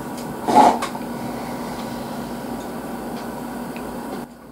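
A short, loud slurp from a bowl held to the mouth about half a second in, then steady room noise with a faint low hum.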